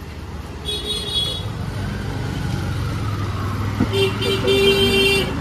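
A vehicle horn honks twice, a short toot about a second in and a longer, louder one near the end, over a running engine and street chatter.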